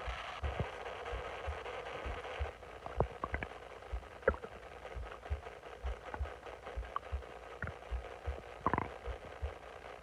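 Bloated stomach gurgling: a rushing rumble that stops about two and a half seconds in, then a few short squeaky gurgles, the longest near the end. Under them runs a steady series of low, dull thumps, about two a second.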